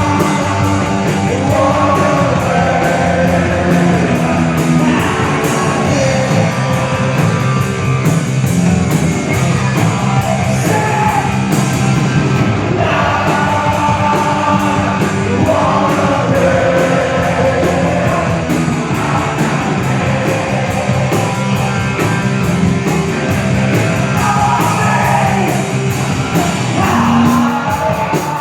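Loud punk rock music: a full band of guitars and drums with shouted singing over it, going on without a break.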